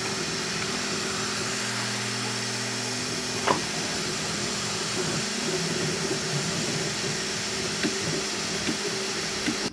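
Creality FDM 3D printer running a print: a steady hiss of its cooling fans over the humming of its stepper motors, whose tones shift and change as the print head moves about three seconds in. A single sharp click sounds about three and a half seconds in.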